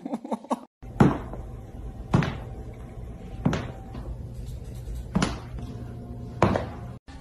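Five sharp knocks on a hardwood floor, about a second or so apart, each ringing briefly: a small hard object carried in a cat's mouth knocking against the floor as the cat walks.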